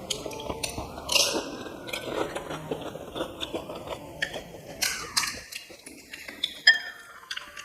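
Close-up eating sounds: irregular crunching bites and chewing of crisp fried puri shells, loudest about a second in and again near the end.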